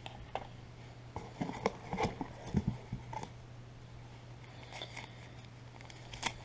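Small clicks, taps and rustles of logo badges and packaging being handled, clustered about one to three seconds in and again near the end, over a steady low hum.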